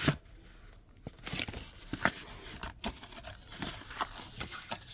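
Paper envelope being torn open and its contents handled: irregular rips, rustles and crinkles of paper.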